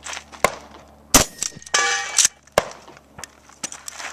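Shotgun fired at a match stage: sharp reports with a ringing metallic clang between them and smaller clacks and knocks around them, ending with the gun being set down on a table.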